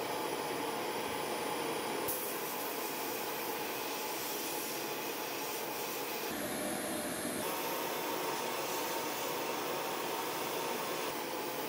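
Sandblasting cabinet gun hissing steadily as it blasts abrasive onto a steel toy-truck panel, stripping paint and rust. The tone shifts briefly about six seconds in.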